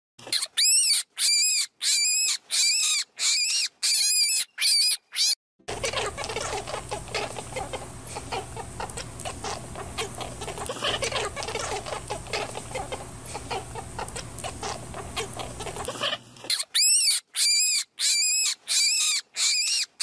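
A young animal peeping over and over in shrill calls, about two a second, each rising and then falling in pitch. After about five seconds the calls give way to ten seconds of dense crackling noise with a low hum. Then the peeping comes back near the end.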